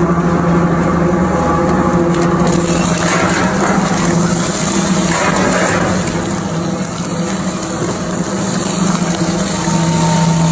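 Twin-shaft shredder running steadily with a motor hum, with a rattle and crunch about three seconds in as a boxful of small boxed items is tipped onto the cutters.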